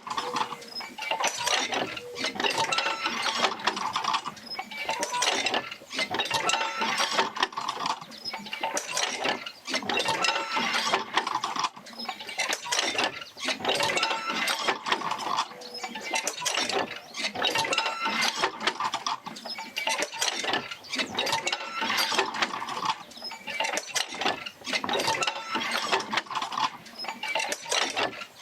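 Oil-field field wheel rocking back and forth as it drives jerker lines out to the pumps. Its wooden and iron linkages clank, clink and creak in a cycle that repeats every couple of seconds, with an occasional faint squeak.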